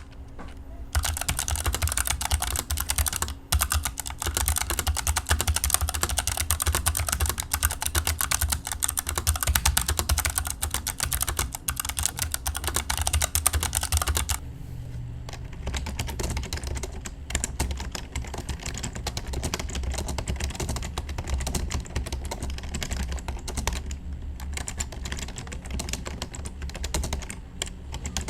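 Fast typing on the Tecware Phantom L's Outemu low-profile blue switches, a dense run of sharp clicky keystrokes. A little past halfway the typing gets quieter and less crisp.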